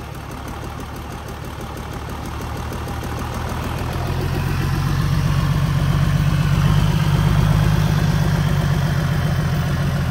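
Isuzu 6WF1 inline-six turbo-diesel engine running on a test stand with its oil filler cap off, growing louder about four seconds in and then running steadily.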